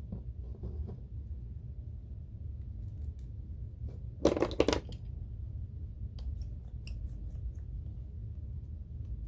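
Small metallic clicks and taps of a precision screwdriver and tiny screws at the bottom of an iPhone, with a loud clattering cluster about four seconds in and light ticks afterwards.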